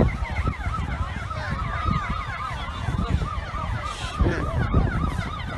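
Several emergency sirens sounding at once in a fast up-and-down yelp, their sweeps overlapping, over a low rumbling noise.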